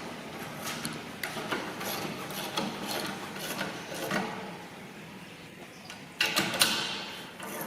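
Bolts being tightened with a spanner: a run of short metallic clicks and scrapes, with a louder rattle of metal about six seconds in.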